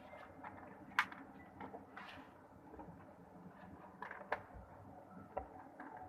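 Scattered light clicks and knocks of a small plastic folding washing machine being handled. The sharpest come about a second in and again about four seconds in.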